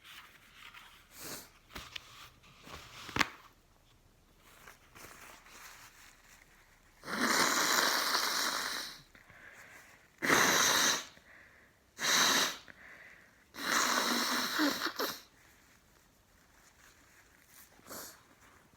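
A person sneezing and blowing the nose in loud, noisy bursts, set off by chhinkni herbal sneezing powder. Faint sniffs come first; about seven seconds in, one long blast of about two seconds is followed by three shorter ones over the next eight seconds.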